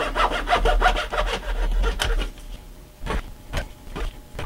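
Strip wood being cut by hand, a quick run of rasping strokes for about two seconds, followed by a few light clicks and taps.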